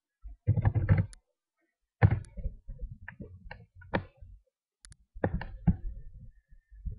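Typing on a computer keyboard: an uneven run of keystrokes heard as clicks with low thumps, in short bursts with gaps between them.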